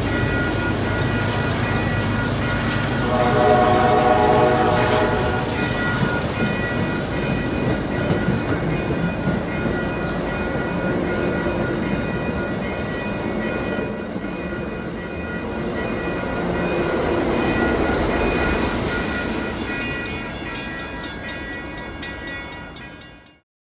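MBTA commuter rail train with bilevel coaches rolling along the platform, its wheels rumbling and clattering. A train horn sounds for about two seconds, about three seconds in, over a steady high ringing. The sound cuts off suddenly just before the end.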